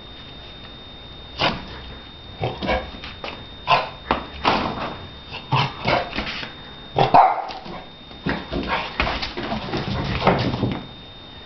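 Shar Pei giving a string of short, irregular barks and yips while playing, starting about a second and a half in and stopping near the end.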